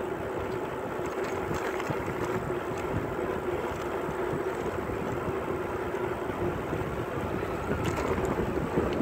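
Wind buffeting the microphone over the steady rolling noise of bicycle tyres on asphalt.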